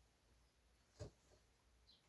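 Near silence, with one faint tap about a second in and a smaller one just after: a hand tool picking at a crack in a jujube-wood slab.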